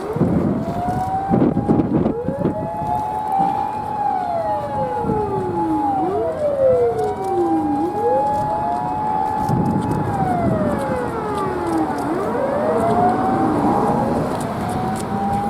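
Sirens of a convoy of Japanese fire engines and rescue trucks on an emergency run: several slow wailing sirens, each rising, holding its pitch, then falling away about every six seconds, overlapping out of step with one another, over the rumble of the trucks' engines as they pass.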